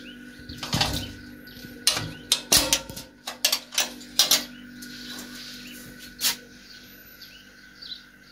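Metal clicking and rattling from the slide bolt and frame of a steel security gate as it is unbolted and opened: a quick string of sharp clacks in the first few seconds, then a last single knock about six seconds in.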